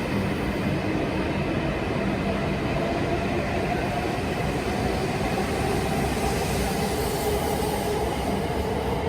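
Hokuriku Shinkansen train running at the station: a steady rush of train noise with a faint motor whine that rises slowly in pitch.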